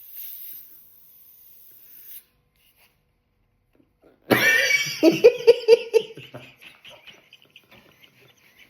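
A sudden high-pitched sneeze from someone who has inhaled helium, about four seconds in, followed by a few seconds of laughter that fades away.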